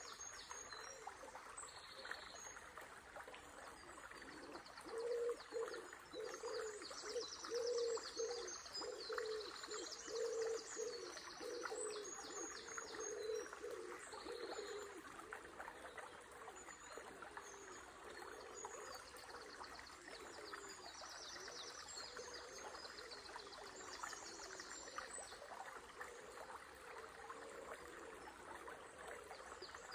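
A river flowing steadily while small songbirds sing high, scattered phrases. From about five seconds in, a low-pitched bird call repeats rhythmically for about ten seconds and is the loudest sound.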